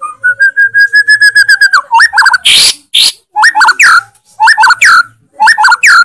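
White-rumped shama (murai batu) singing in full song: a fast run of about a dozen identical whistled notes, then loud sweeping whistled phrases in quick bursts, broken by two short harsh rasping notes.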